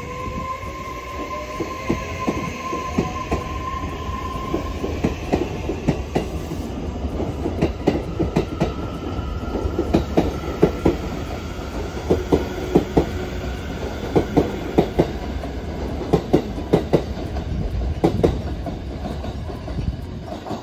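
A train running past over jointed rail, its wheels clacking over the rail joints in quick pairs and groups of knocks over a steady rumble. A steady high whine fades out about four seconds in, and the clacking grows denser and louder in the second half.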